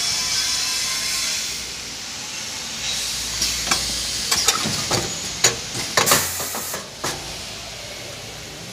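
Napkin tissue packing machine hissing steadily for the first second and a half, then the hiss fades. From about three to seven seconds in comes a run of sharp clicks and crinkles as plastic packing film is handled at the machine's feed.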